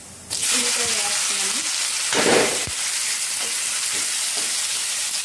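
Chopped onions dropped into hot oil with cumin in a kadai, breaking into a loud, steady sizzle about a third of a second in as they hit the oil. They are then stirred, and the frying swells briefly around two seconds in.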